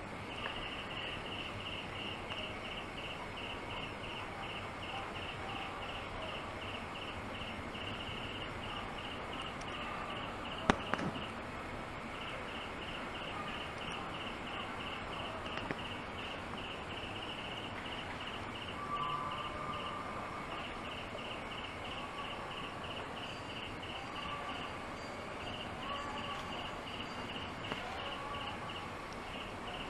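Outdoor ambience with an insect's high chirp pulsing about three times a second, stopping and restarting several times, and one sharp knock about a third of the way through.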